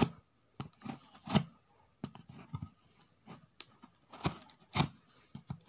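A pointed blade scoring and slitting the packing tape on a cardboard parcel box: scattered short scrapes and taps, the sharpest about a second in and again near the end.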